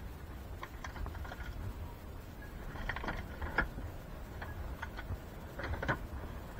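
Scattered small clicks and knocks in a few clusters over the low, steady rumble of a Volvo FH truck's diesel engine idling, heard inside the cab.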